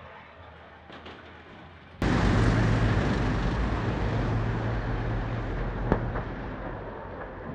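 Race truck diesel engines at full throttle as a pack of racing trucks drives past, a loud dense rumble with a steady low drone that starts abruptly about two seconds in and slowly fades. A single sharp crack sounds near the end. Before the engines there is only faint background noise.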